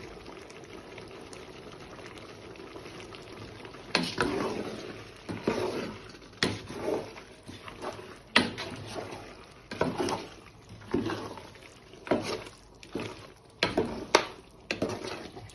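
Soup in a cooking pot being stirred or ladled: after a few quiet seconds comes a series of about a dozen irregular splashes. Each one starts with a sharp knock and dies away over a fraction of a second.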